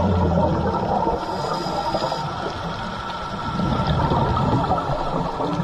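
Scuba divers' exhaled regulator bubbles gurgling and rushing underwater, a continuous bubbling noise. A low drone underneath drops out within the first second.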